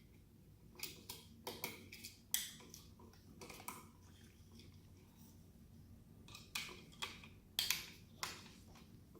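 Scattered small clicks and taps from hands working a wall light switch and its wires as the earth wire is connected, in two short bursts.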